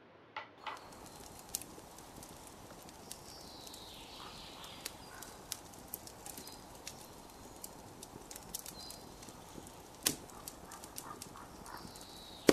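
Fire crackling: irregular sharp pops and snaps over a soft steady hiss, with a louder pop about ten seconds in.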